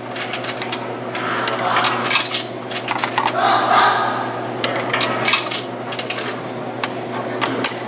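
Quarters dropped one by one into a soda vending machine's coin slot, clinking and rattling down through the coin mechanism as the credit counts up. A steady low hum runs underneath.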